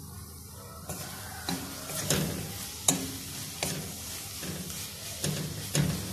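A metal spatula stirs fried fenugreek leaves in a stainless steel karahi, scraping and clicking against the pan about once a second from about a second in, over a faint sizzle of oil.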